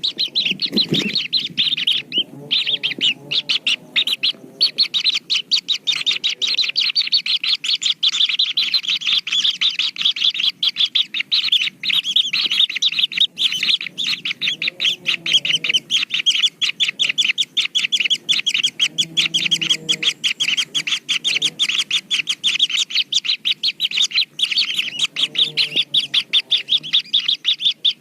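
Kingfishers at the nest chirping continuously in a fast, high-pitched, unbroken run of many calls a second. Fainter, lower calls come and go beneath it.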